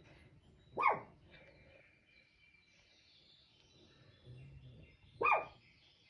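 A dog barks twice: one short bark about a second in and another about four seconds later.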